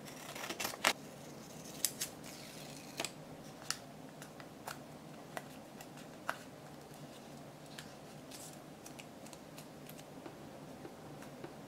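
Scissors snipping through a printed paper card, with the loudest cuts in the first second. They are followed by scattered light clicks and taps as the cut card and a folded cardboard holder are handled.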